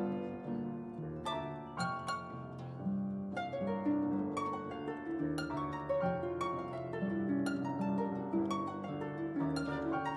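Live chamber music: harp and nylon-string classical guitar plucking a repeating rock-style ostinato, with piano, in a run of short, ringing notes.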